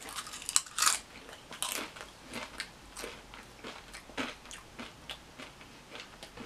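Tostitos tortilla chip topped with dip being bitten and chewed: loud crunches in the first second, then softer crunchy chews about twice a second that fade away.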